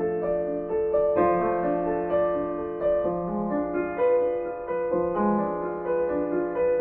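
Background piano music, a calm piece of held and changing notes, with no speech.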